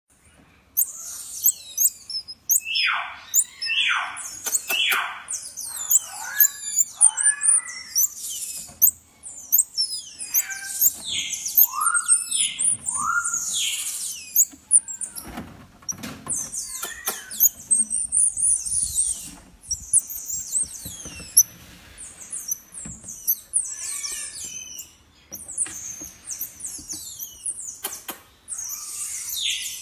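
Baby marmoset calling: a long run of high-pitched chirps, squeaks and short whistles, many sliding down in pitch, with a few light knocks about halfway through.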